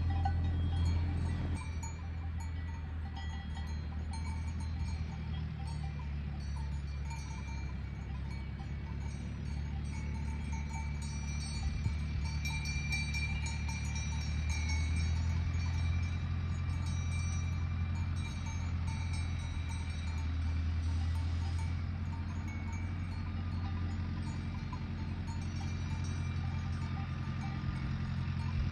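Cowbells ringing and tinkling over a steady low hum.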